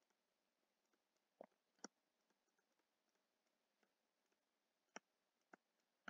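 Near silence broken by a handful of faint, sharp clicks at uneven intervals: a stylus tapping on a tablet screen during handwriting.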